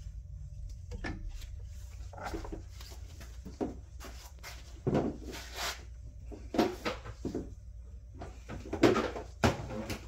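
Irregular knocks and clatters of tools and parts being handled on a workbench, a dozen or so, the loudest about nine seconds in, over a steady low hum.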